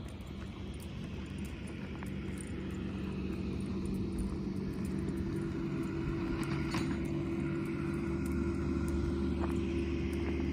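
A motor engine running steadily, slowly growing louder.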